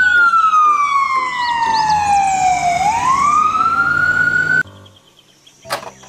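Ambulance siren wailing: one slow sweep down and back up in pitch, cut off abruptly about four and a half seconds in. A few light clicks follow near the end.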